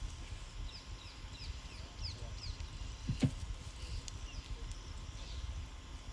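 Outdoor ambience with a bird chirping a quick run of short falling notes, over a steady low rumble. A brief low voice sound about three seconds in.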